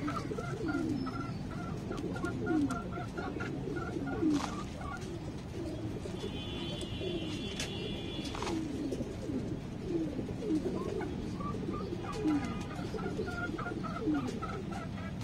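Several caged domestic pigeons cooing, with overlapping low coos all through and a brief higher chirping about six to eight seconds in. Light knocks of plastic cups scooping soil now and then.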